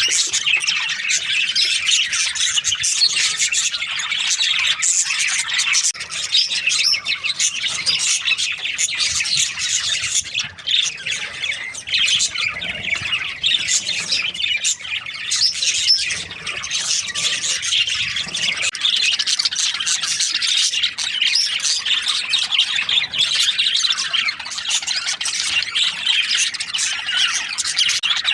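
A flock of budgerigars chirping and chattering nonstop, a dense mass of overlapping quick, high chirps and squawks.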